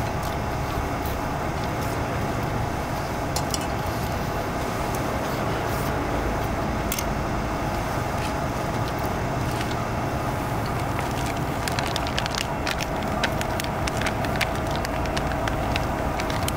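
Canister-top camping gas stove burner running with a steady roar and hiss. Scattered light crackles and ticks come in from about two-thirds of the way through, as a frying pan sits on the flame.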